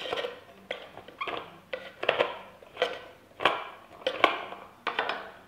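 Plastic hydrostatic valve being twisted out of a pool main drain housing with a valve removal tool: a series of short squeaks and clicks from the turning plastic threads, about two a second.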